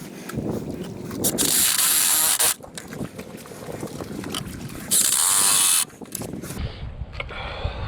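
A power drill runs in two loud bursts of about a second each, one early and one about five seconds in, the second with a whining motor pitch, while driving or drilling for Tapcon masonry screws.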